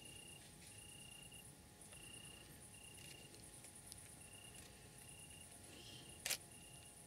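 Faint crickets chirping at night: a high, rapidly pulsing buzz runs throughout, with a lower trill repeating in short bursts about once or twice a second. A single sharp click sounds about six seconds in.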